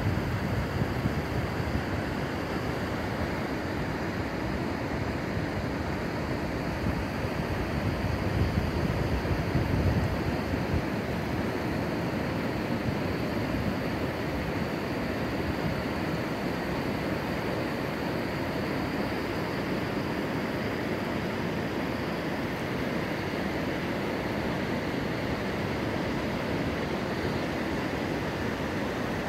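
Waves washing in on a sandy beach, a steady rush of surf, with wind buffeting the microphone and gusting louder about eight to ten seconds in.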